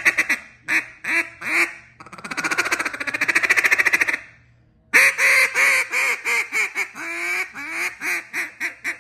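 Duck call with a freshly fitted and trimmed reed being blown through its range: three short quacks, about two seconds of fast rolling feed chatter, a short pause, then a long string of quacks falling in pitch.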